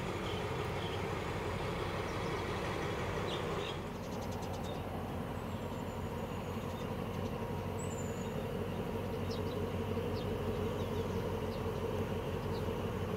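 A diesel locomotive engine running at a distance, a steady low drone, with a few short high chirps over it.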